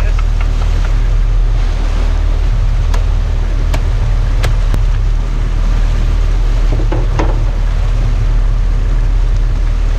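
Sport fishing boat's engine running steadily, with the rush of water and wind over it. A few sharp clicks come a few seconds in.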